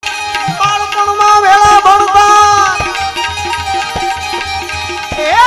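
Live Gujarati folk music: a sustained, gently bending melodic line over evenly paced drum strokes.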